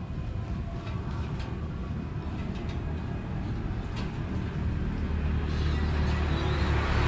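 Low, steady engine rumble with some faint clatter, growing louder over the last few seconds.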